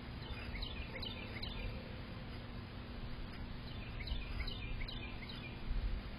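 A bird chirping in two short runs of quick, high, falling notes, each lasting about a second, over steady low background noise.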